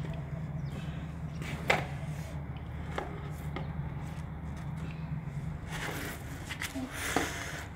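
Rubber garden hose being gripped and dragged across a tiled floor: a few sharp knocks and a short scuffing rustle near the end, over a steady low hum.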